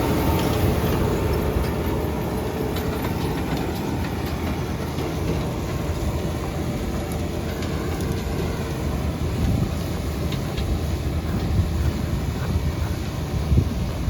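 Fendt tractor pulling a Massey Ferguson RB156 round baler through the field: a steady low rumble of engine and baler machinery, with faint scattered clicks.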